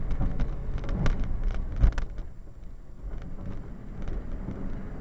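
Rock truck's diesel engine running with a steady low rumble, over which come many sharp rattles and knocks for about the first two seconds, the loudest near two seconds in. After that the rattling stops and the engine drone carries on, quieter.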